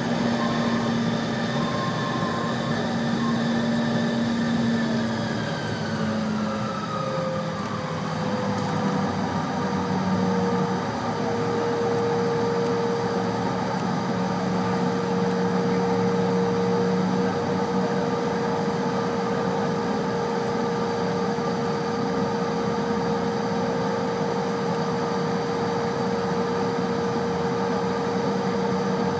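Regional jet's turbofan engines heard from inside the cabin. Their whine falls in pitch over the first several seconds as power comes back, then holds at a steady lower pitch with a constant rush of engine noise while the aircraft rolls slowly.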